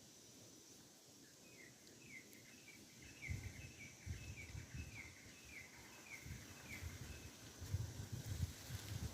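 A bird calling a series of short, falling chirps, about two a second, for several seconds. Low rumbling noise comes in from about three seconds in and grows toward the end.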